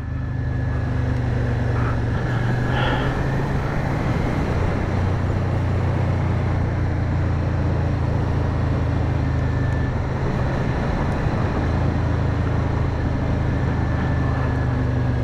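Motorcycle engine running steadily at low, constant speed while riding slowly, with wind and road noise.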